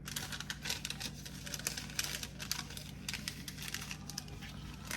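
Rapid, irregular crinkling and rustling of paper or plastic being handled. A steady low hum sits underneath.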